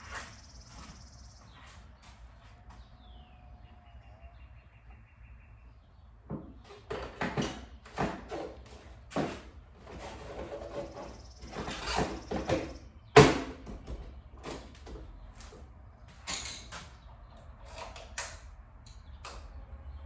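Irregular knocks and clicks of a motorcycle seat being handled and fitted back onto the bike, with a single sharp knock about 13 seconds in as it is pressed into place.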